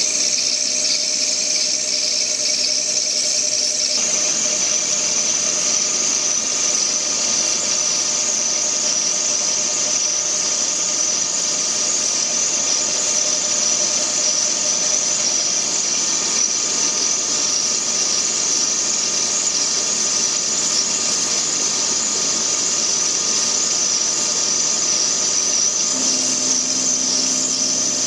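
Metal lathe running, machining brass with a high-speed-steel tool, with a steady high-pitched whine that starts suddenly and holds unchanged.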